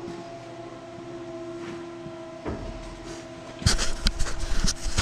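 A steady machine hum with a couple of pitched tones underneath. A little past halfway, loud irregular knocks and rubbing start as the camera is picked up and handled, with its lens covered.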